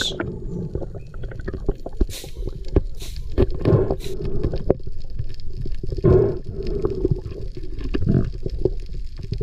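Underwater sound picked up by a submerged camera as a spearfisher dives: a muffled rumble of water moving past the housing, with scattered clicks and knocks throughout.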